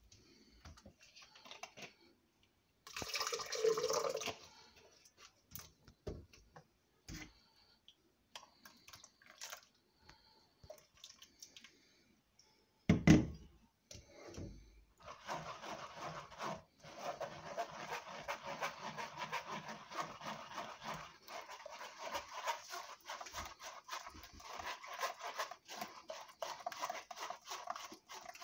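Fruit juice being strained: liquid trickling and dripping through a strainer, steady from about fifteen seconds in with many small clicks. Before that come scattered small knocks and one loud knock.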